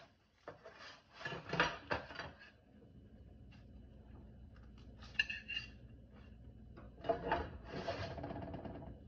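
Slotted metal fish spatula scraping across a silicone baking mat on a metal sheet pan while lifting broiled salmon collars, in a few scrapes. Short metallic clinks come about midway, and a last longer scrape near the end.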